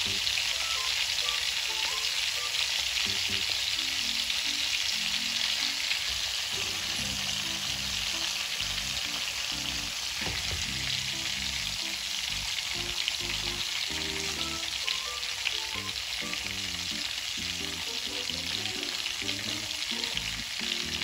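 Pieces of pre-boiled chicken shallow-frying in hot oil in a stainless steel pan, with a steady sizzle that crisps the skin.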